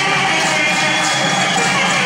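Loud Tamil folk music for a karagam dance, with a high melody line held in long, steady notes.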